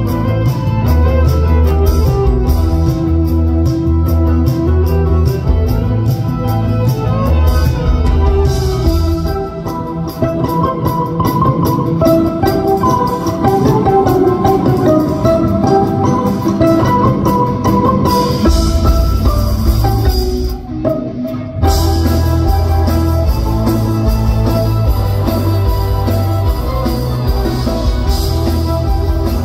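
Live amplified instrumental rock: electric violin lead over electric guitar and drum kit, played loud through a concert PA. The band drops out briefly about two-thirds of the way through, then comes back in at full volume.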